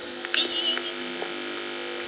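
Electromechanical telephone exchange switching equipment giving a few sharp clicks over a steady hum and sustained tones, with a brief high warble about half a second in.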